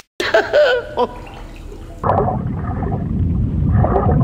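Water sound effects for a stormy sea: churning, gurgling water that comes in about two seconds in, after a short tail of a sung line.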